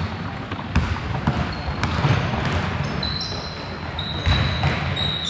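A basketball bouncing on a sports hall floor with players' running footsteps, the thuds echoing in a large hall. A high steady squeak is held for about two seconds in the second half.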